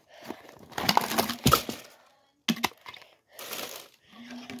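Clear plastic toy tube and its packaging being handled and opened: irregular crackling, clicks and knocks of plastic, loudest about a second in.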